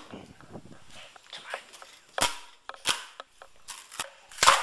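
Irregular knocks and taps from things being handled and set down on a wooden surface. There is a sharp knock about two seconds in and the loudest one just before the end.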